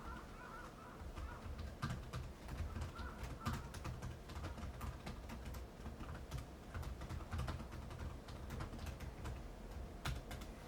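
Strong wind rumbling on the microphone, with scattered sharp clicks and taps and a faint bird call at the start and again about three seconds in.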